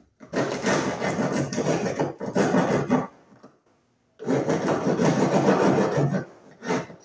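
Small hand saw cutting a notch into a wooden board with quick strokes, in two runs of about three and two seconds, then a brief third run near the end.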